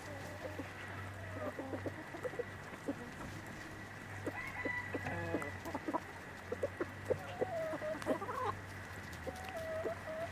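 A flock of chickens clucking, many short calls overlapping throughout, with a few longer drawn-out calls in the second half.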